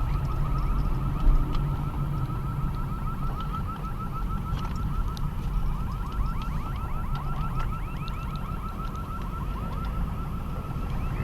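An alarm sounding a rapid, repeating warble of rising chirps, several a second, which the listener guesses is a store's alarm going off. A vehicle engine rumbles low underneath.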